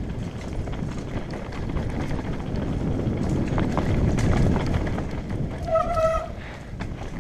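Mountain bike descending a dirt trail: tyres rumbling over the ground, the bike's frame and parts rattling and clicking over bumps, with wind on the microphone. It grows louder toward the middle, and there is a short pitched squeal about six seconds in.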